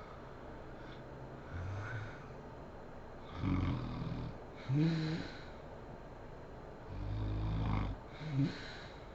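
A sleeping woman snoring: two loud, low, rattling snores about three and a half seconds apart, each followed by a short higher-pitched sound, with a fainter snore just before them.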